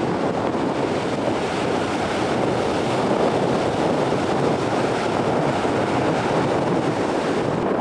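Wind rushing over the microphone together with the wash of small waves breaking at the shoreline, a steady noise that does not let up.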